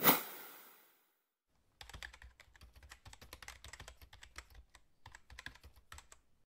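A sharp hit at the start fades away over about a second, like a slide-transition sound effect. After it comes a rapid run of computer-keyboard typing clicks, a typing sound effect for text being typed out, with a brief pause near the end.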